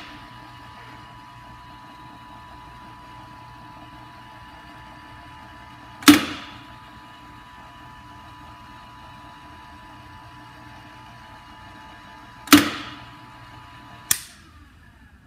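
Maxon Series 5000 safety shutoff valve's motor operator running with a steady hum as it spins the cam assembly, with sharp clicks about six seconds in and about twelve and a half seconds in, and another just before the hum stops near the end. The hum holds one pitch, with no solenoid pulling in and no change in pitch from the motor working against the return spring: the sign of a solenoid that is not working.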